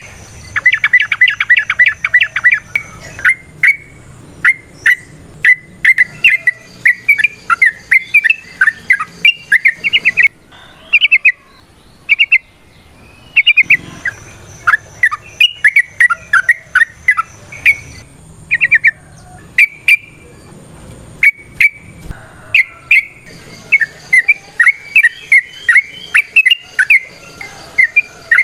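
Yellow-vented bulbul (trucukan) singing a loud, fast song of bubbly, chattering notes. A rapid rattling trill comes near the start, and there is a short pause about halfway through.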